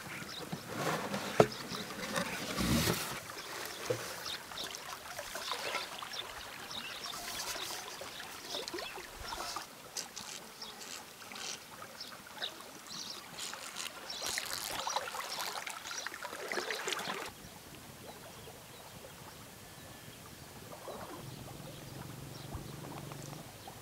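River water running and splashing, with irregular rustling and a few sharp clicks. About two-thirds of the way through it cuts off suddenly to a much quieter background with a faint low hum.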